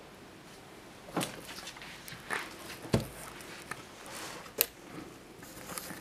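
Handling noise: a few irregular knocks and sharp clicks with some rustling, the loudest a dull thud about three seconds in.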